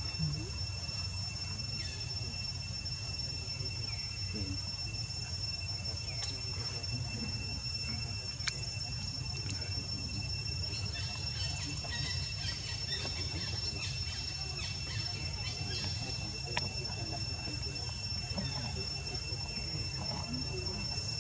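Steady background: a constant high whine made of several steady tones over a low hum, with scattered faint clicks and short chirps through the middle.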